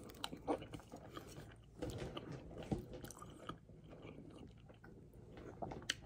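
A person chewing a forkful of Chipotle salad close to the microphone, with wet mouth noises and a few sharp clicks.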